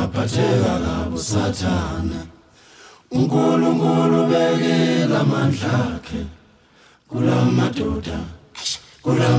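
Background music of unaccompanied voices singing: short sung phrases, then one long held chord about three seconds in, then more phrases near the end.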